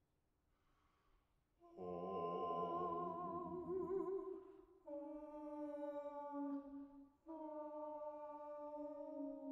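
Unaccompanied mezzo-soprano and bass singing soft, long held notes. After nearly two seconds of near silence both voices enter together, the pitch wavering. About three seconds later the low voice drops out and a single voice holds two long steady notes with a short break between them.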